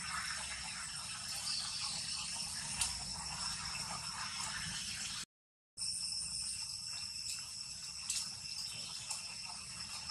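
Forest ambience dominated by a steady, high-pitched insect drone, with a few faint ticks. The sound cuts out completely for about half a second around the middle.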